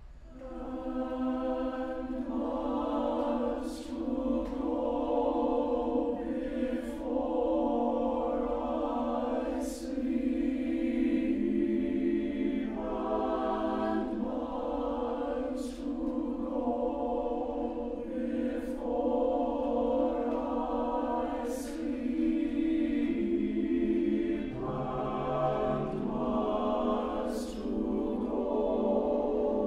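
SATB chamber choir singing a cappella: slow, repeated tone-cluster chords on "And miles to go before I sleep," each chord held about three seconds and often ending on a crisp sibilant "s".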